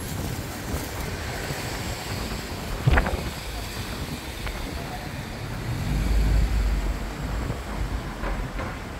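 Wind buffeting the microphone over steady outdoor noise, with a strong low gust of wind rumble about six seconds in. A single sharp knock about three seconds in.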